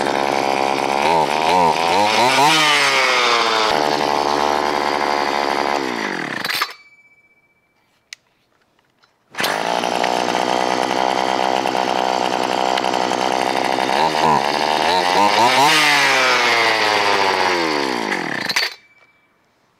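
Homelite Z3300 chainsaw's small two-stroke engine running and being revved up and down, winding down and stopping about six and a half seconds in, then running again from about nine seconds and dying out again near the end. It stumbles and dies when the throttle is opened hard, which the owner puts down to a still-clogged high-speed needle circuit in the carburettor making it run too lean.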